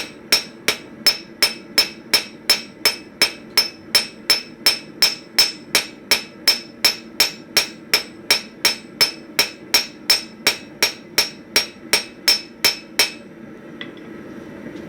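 Hand hammer striking hot steel flat stock on an anvil in a steady rhythm, a little under three blows a second, each blow with a bright ring. These are half-face blows spreading the end of a hinge strap into a lily-pad shape. The hammering stops about 13 seconds in.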